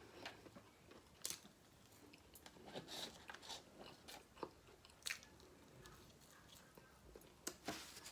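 A person chewing fast food close to the microphone: soft, irregular mouth sounds and smacks, with a few sharper clicks about a second in, around five seconds in and near the end.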